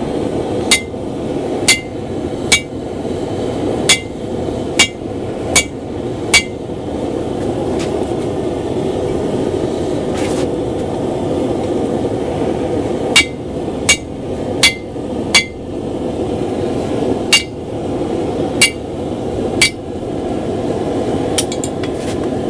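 Hand hammer striking a steel punch to drive it into a hot mild-steel block and open the axe eye: sharp ringing blows in three runs of seven, four and three, roughly one a second, with pauses between. A steady roar of the running forge sits underneath.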